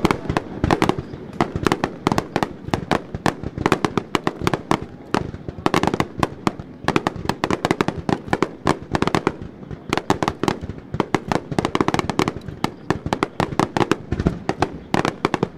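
Starmine fireworks finale: a rapid, unbroken barrage of aerial shell bursts and crackling reports, many sharp bangs every second.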